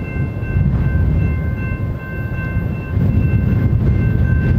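Grade crossing warning bell ringing in a steady repeating pattern while the crossing gates lift, over a heavy low rumble.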